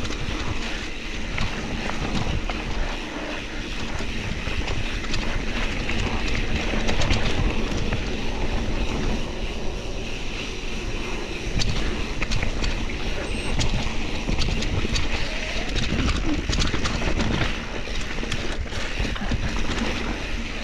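Mountain bike riding fast over a rocky, rooty dirt trail: tyres crunching on the dirt and the bike rattling and clicking over bumps, with wind buffeting the handlebar-mounted microphone.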